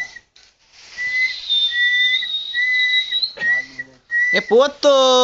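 A person whistling a string of held, steady notes with short breaks between them. Near the end comes a loud, drawn-out call in a person's voice, its pitch bending down as it stops.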